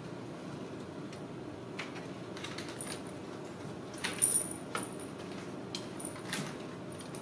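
Light taps, clicks and small rattles as a kitten clambers over a plastic toy car. A cluster of sharper clinks with a brief high ring comes from about four seconds in.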